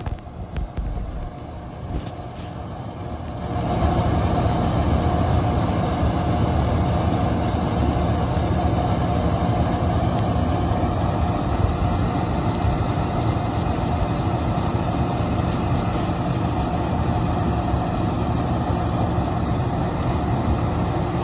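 Combine harvester's diesel engine running steadily at working speed while its unloading auger discharges paddy grain into a tractor trolley, a constant rumble with a steady hum. It gets louder about three and a half seconds in and stays level.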